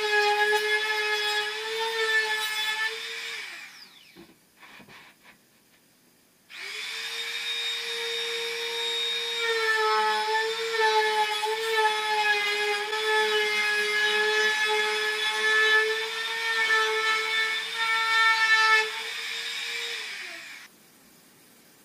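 Compact trim router running with a steady high whine as it cuts along the edge of a wooden tabletop, its pitch wavering slightly under load. It winds down about three and a half seconds in, starts up again after a short pause, cuts for about fourteen seconds and winds down near the end.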